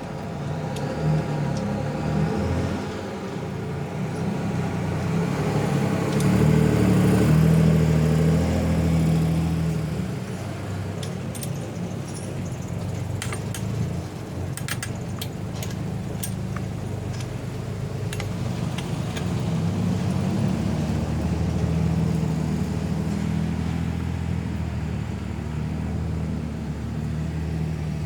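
Gasoline two-stroke engine of a 52cc chainsaw running, louder for a few seconds about a quarter of the way in, with a few light clicks in the middle.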